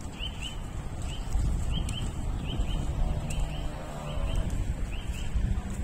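Shod horse hooves clip-clopping on a hard road, a steady rhythm of short paired clinks, over a low rumble.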